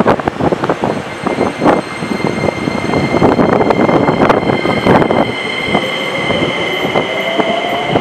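Keikyu 2100 series electric train accelerating away from the platform: wheels clacking over rail joints and running noise as the cars pass, under the steady high whine of its Toyo IGBT-VVVF inverter. From about five and a half seconds in, a motor tone slowly rises in pitch as the train gathers speed.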